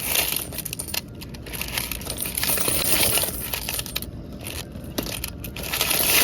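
A large load of quarters being poured from a vending machine's coin box into a bag, the coins clinking and sliding against each other, with short pauses between pours.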